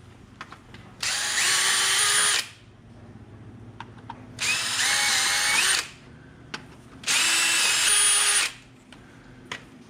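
Power drill running in three short bursts of about a second and a half each, drilling into the wall where the charger's mounting screws are to go into a stud, with a few light clicks between the bursts.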